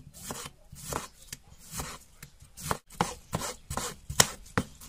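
Kitchen knife slicing a tomato on a plastic cutting board: a steady series of cuts, about three a second, each blade stroke ending in a tap on the board.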